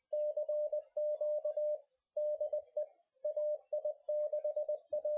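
Morse code sent as a single steady tone, keyed on and off in short and long elements and grouped like letters and words, with brief pauses between the groups.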